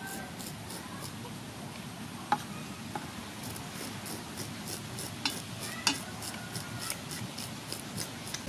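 Scissor blade scraping the scales off a raw fish: a run of short, rasping strokes a few times a second, with a few sharper clicks.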